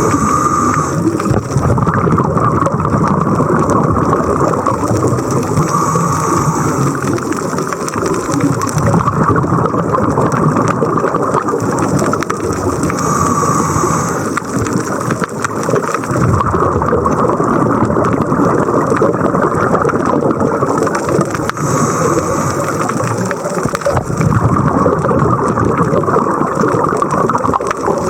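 Scuba diver breathing through a regulator underwater: a continuous rush and rumble of exhaled bubbles. The sound swells and eases in a slow breathing cycle every several seconds.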